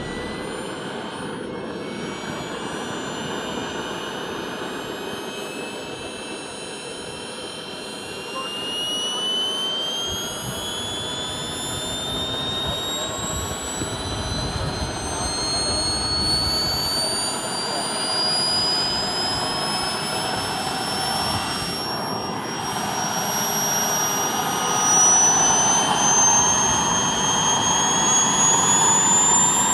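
Swiwin SW120B model jet turbine running, a whine rising steadily in pitch as the turbine spools up, over a rushing exhaust noise that gets louder near the end.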